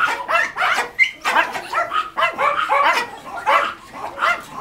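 Many caged dogs barking at once, short barks overlapping several times a second in a continuous din.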